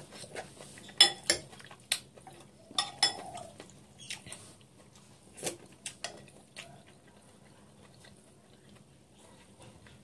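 Metal spoon and fork clinking against a dish in a string of sharp clicks over the first seven seconds, then quieter.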